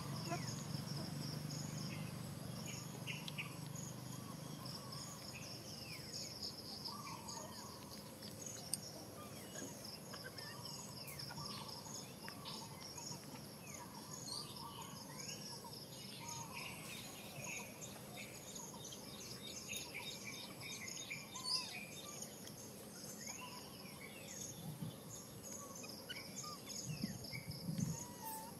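Insects chirring steadily in a high, pulsing drone, with short chirps scattered through it. A low rumble fades out over the first few seconds.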